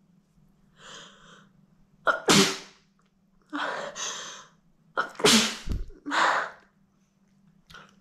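A woman sneezing: breathy inhales building up, then loud sharp sneezes at about two and five seconds in, with another sneeze-like burst about a second after the second one.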